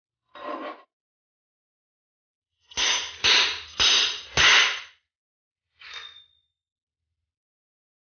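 Crown race setting tool, a metal tube, slammed down a fork's steerer tube four times in quick succession to drive the crown race onto the fork crown. Each blow is a sharp metallic clang with some ringing. A lighter clink comes just before, and a last lighter clang with a short ringing tone follows near the end.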